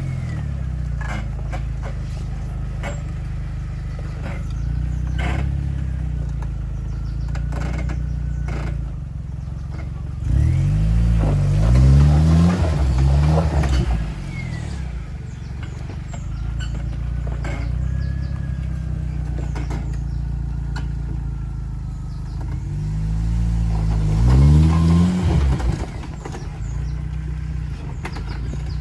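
Jeep Wrangler engine running at low speed while crawling over rocks, revving up twice, once about a third of the way in and again near the end, with scattered knocks and clatter from the rocks and the vehicle.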